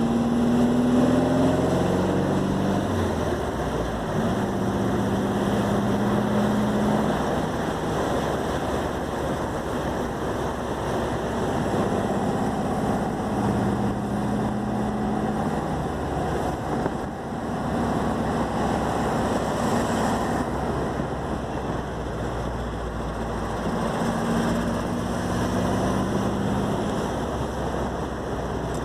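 Puma GTS's air-cooled Volkswagen flat-four (boxer) engine running while the car is driven. Its exhaust note rises and falls with the throttle over steady road and wind noise.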